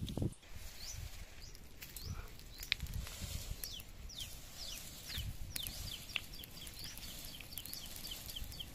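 Small birds calling in quick runs of short, falling chirps, over a low rumble and a few sharp crackles from a pile of dry leaves, twigs and palm fronds catching fire.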